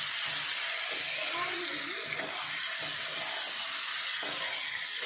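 Marinated chicken frying in hot oil in a kadai, a steady sizzling hiss, while a metal spatula stirs and scrapes the pieces around the pan.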